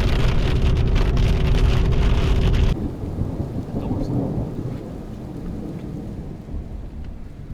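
Heavy rain pattering hard, which cuts off abruptly about three seconds in. Then a quieter low rumble with light rain, slowly fading.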